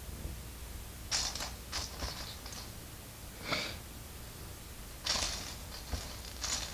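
LEGO plastic pieces being handled and snapped together during a build: a scattered series of short clicks and rattles, about eight in the space of a few seconds, one of them a longer scrape.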